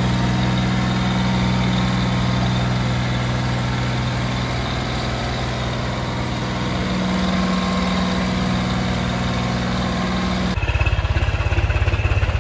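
John Deere tractor's diesel engine running at low revs while the tractor moves slowly. About ten seconds in, the sound changes abruptly to a deeper, pulsing engine rumble.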